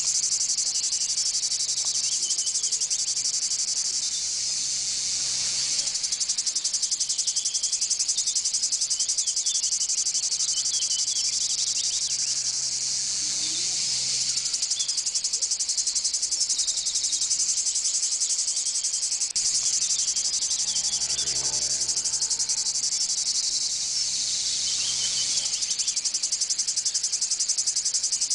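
Insect chorus: a steady, high-pitched buzz with a fine rapid pulse, briefly broken about two-thirds of the way through.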